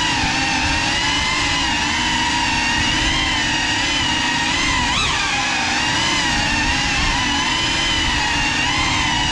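Ducted cinewhoop FPV drone's brushless motors and propellers whining, heard close up, the pitch wavering with throttle and rising sharply for a moment about five seconds in.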